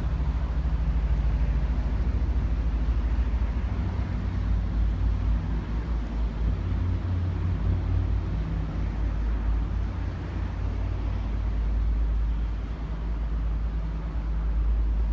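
Fishing boat's diesel engine running as the boat manoeuvres in the harbour: a low, steady engine rumble that swells and eases in strength.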